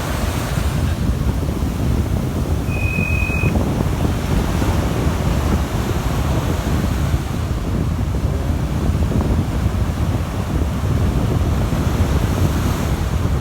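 Wind buffeting the microphone: a steady, loud rumble, with one short high tone a little under three seconds in.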